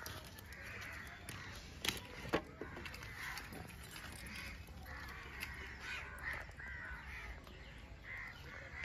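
Crows cawing repeatedly, faint, with a few light clicks from handling.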